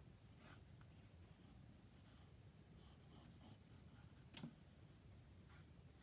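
Faint scratching of a soft water-soluble graphite pencil sketching on dry paper, a few short strokes, with one sharper tick about four and a half seconds in.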